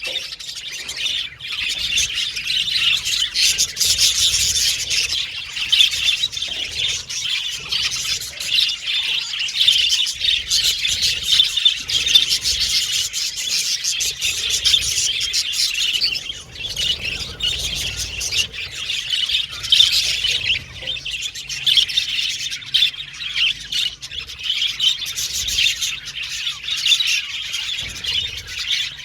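A flock of budgerigars chirping and warbling continuously, many calls overlapping in a dense, high-pitched chatter.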